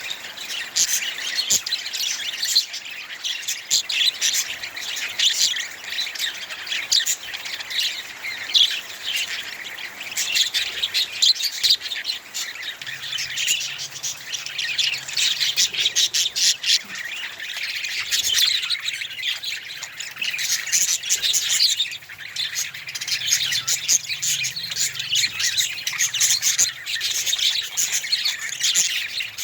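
Budgerigars chattering and chirping continuously, a dense stream of rapid high chirps and squawks from several birds at once.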